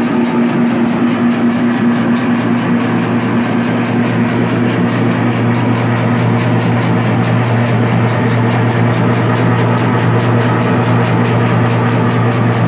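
Electric bakso (meatball) forming machine running steadily: its 650-watt electric motor hums evenly under a fast, regular mechanical ticking from the forming head as it turns out dough balls.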